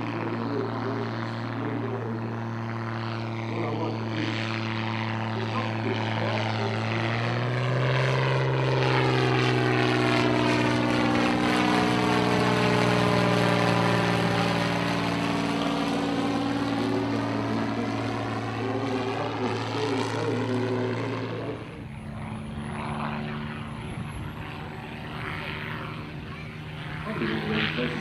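Percival EP.9's geared Lycoming six-cylinder piston engine and propeller droning steadily in a low fly-past. The sound swells and swirls in tone as the aircraft passes close in the middle, then drops abruptly and runs on quieter in the last quarter.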